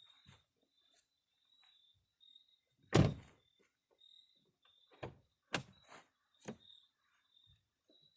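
Car door of a 2013 Nissan Altima: one heavy thunk about three seconds in, then four quick, sharper clicks and knocks a couple of seconds later, as the door and its interior handle and latch are worked.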